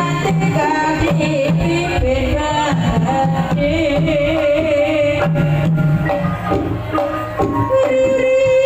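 Javanese gamelan music for lengger dance: hand-drum (kendang) strokes with pitched percussion and a wavering sung melody line.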